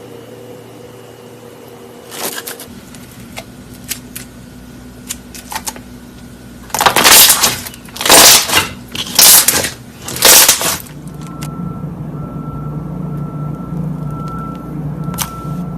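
Slime being pressed and squeezed: crackling and popping clicks, with four loud squishing bursts about a second apart in the middle, then a steady low hum behind the later handling.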